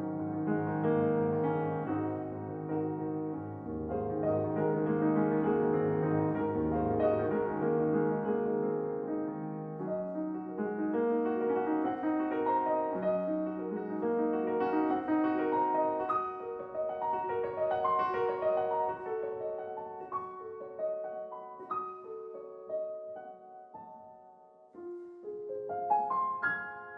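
Background piano music, slow, with held chords; it thins to higher single notes in the second half and grows quieter toward the end.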